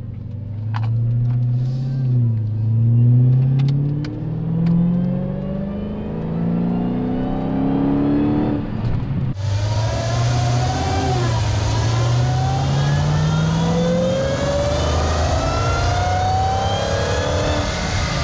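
Dodge Challenger SRT Hellcat's supercharged V8 accelerating hard through the gears on the factory intake, its pitch rising and falling back at each upshift, with supercharger whine climbing above it. About halfway through, the sound switches to a hissier pickup under the hood, where the whine stands out more.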